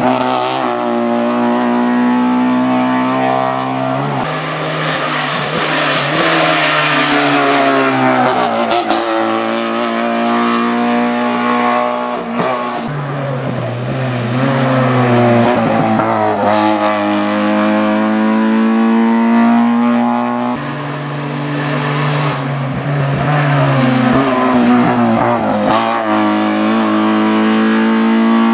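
Small Fiat 500 hill-climb race cars at full throttle. Each engine note climbs in pitch and drops back again and again through its gear changes as the cars go by one after another.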